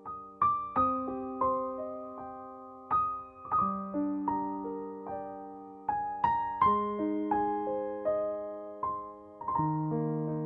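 Background music: a slow solo piano piece, notes and chords struck every half second or so and left to ring and fade.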